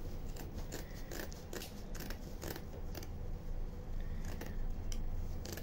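Scissors snipping through a piece of burlap, a run of short, irregular cuts.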